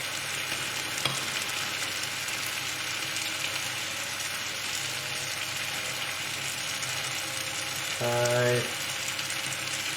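Chicken and curry base gravy sizzling steadily in a hot pan, with a single sharp click about a second in.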